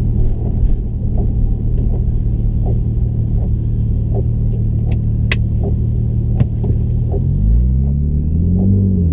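Porsche engine idling with a regular light stumble about every three-quarters of a second, the sign of the misfire being diagnosed. Near the end it is revved briefly and drops back to idle.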